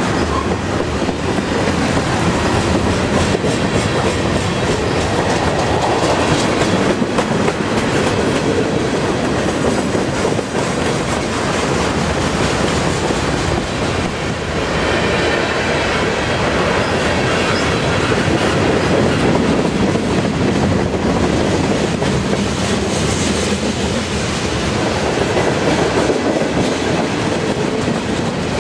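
Freight train's cars (tank cars, covered hoppers, gondolas, boxcars) passing close by: a steady rumble of steel wheels rolling on the rails.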